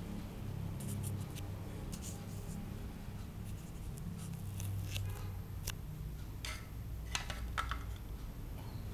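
Low steady hum under scattered light scrapes and clicks of small objects being handled, the clicks thickest in the second half.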